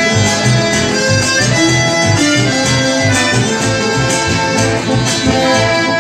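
Live chamamé band playing an instrumental passage, led by a button accordion, with bandoneon and acoustic guitar and an electric bass keeping a regular pulse.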